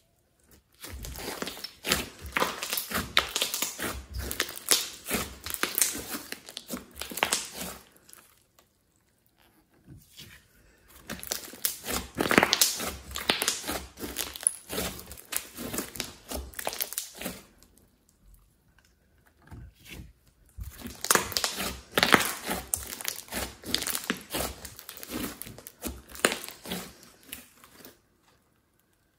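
Glossy slime mixed with clay and glitter being squeezed and stretched by hand, giving a dense run of small clicks and pops. It comes in three spells of several seconds each, with short quiet gaps between.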